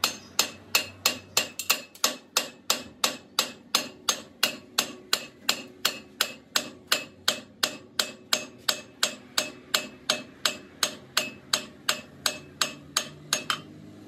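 Hammer striking metal in a steady, even rhythm of about three blows a second, each blow sharp with a short metallic ring; the hammering stops about a second before the end.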